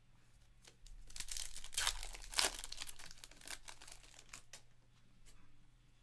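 The wrapper of a 2022 Topps Stadium Club baseball card pack is torn open and crinkled, starting about a second in and loudest for the next second and a half. It then dwindles to scattered light crackles as the cards are slid out of the wrapper.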